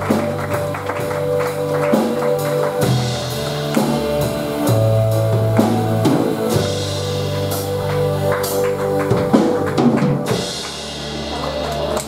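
Live band playing an instrumental closing passage: a drum kit keeps the beat under held keyboard chords and a low bass line, with a guitar. About ten seconds in the drums stop, leaving a sustained chord ringing.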